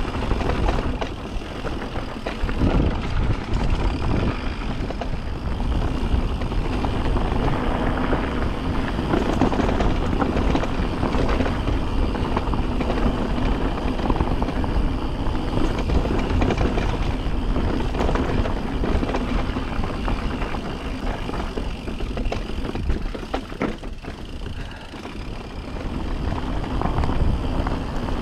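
Riding noise from an electric mountain bike on a rocky dirt trail: wind rumbling on the microphone and tyres rolling over dirt and rocks, with scattered knocks and rattles. The noise eases off briefly about three-quarters of the way through.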